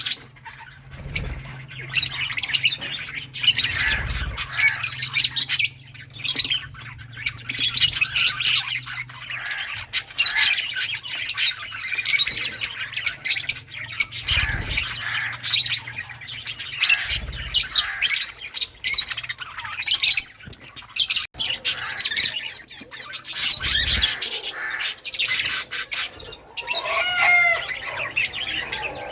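A group of lovebirds chirping and squawking in rapid, overlapping, high-pitched bursts, with a few short low thumps mixed in and one slower gliding call near the end.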